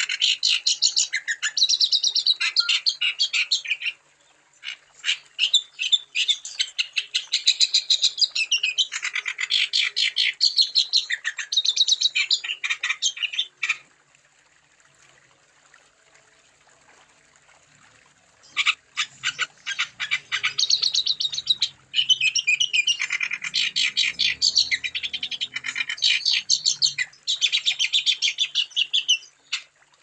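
Wambi songbird singing long, rapid runs of high chirping notes, each run lasting several seconds. There is a pause of about four seconds midway.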